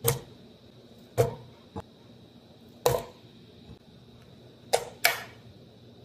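Banana pieces dropped into a blender jar, each landing with a sharp knock: about five knocks, the last two close together near the end.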